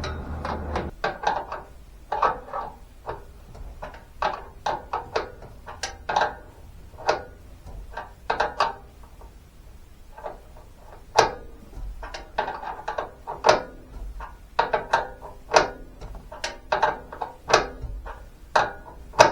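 Irregular sharp metallic clicks and clinks of hand tools working the T-bolts and nuts on a side-pipe mounting, some coming in quick runs.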